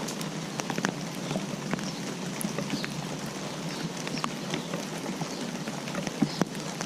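Rain falling: a steady hiss with many individual drops tapping sharply at irregular moments.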